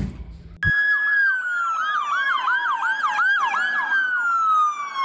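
Toy police car's electronic siren sound switching on abruptly about half a second in. A slowly falling wail runs with a fast warbling yelp layered over it, about three cycles a second.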